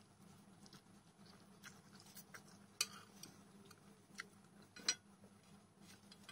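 Quiet eating sounds: instant noodles and crisps being eaten with steel chopsticks from a plate, with a few small sharp clicks, the loudest about three and five seconds in.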